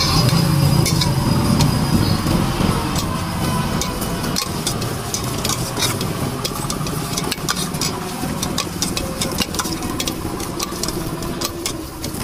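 Boiled potatoes being mashed and mixed by hand with spices in a stainless-steel bowl: squashing with many sharp clicks against the steel, over a steady rumble of street traffic.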